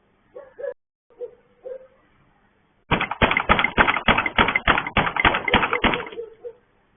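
Rapid banging on a gate: about a dozen hard blows in quick succession, roughly four a second, starting about three seconds in and lasting about three seconds.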